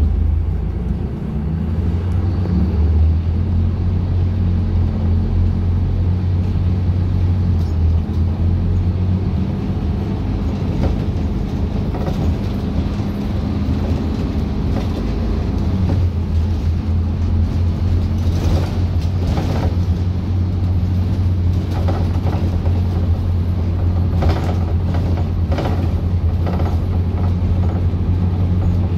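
Ride inside a Scania K250UB city bus with a Caio Millenium body: the diesel engine and drivetrain give a steady low drone under road noise. Short rattles and knocks from the body and fittings come now and then in the second half.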